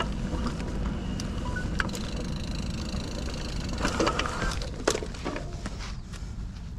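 Mountain bike rolling over a dirt trail: a steady rumble of tyres on dirt and wind on the microphone, with a few short rattles from the bike about four and five seconds in.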